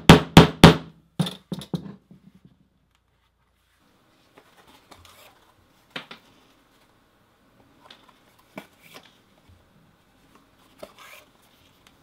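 A steel stitching chisel hammered through thick vegetable-tanned leather into a wooden mold, punching stitch holes: four hard, sharp knocks in quick succession in the first second, then three lighter ones. From about four seconds in, hand stitching: waxed thread drawn through the leather in faint scratchy pulls with a few soft ticks.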